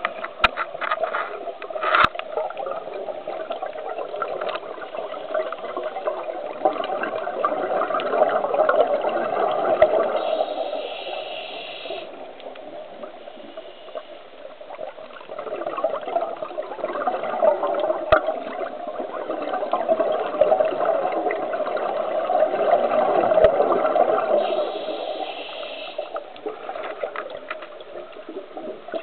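Scuba diver breathing through a regulator underwater: long swells of exhaled bubbles rumbling past the camera, broken twice by a brief higher hiss of inhalation, with a few sharp clicks near the start and about eighteen seconds in.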